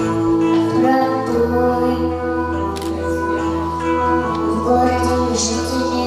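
A woman's voice singing a song over an instrumental accompaniment, with a low bass line coming in about a second and a half in.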